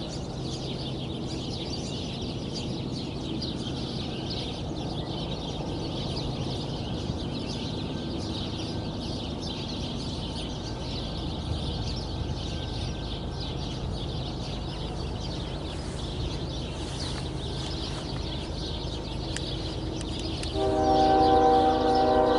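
Train running with a steady low rumble, then a locomotive air horn sounding loudly near the end, several notes at once in a chord.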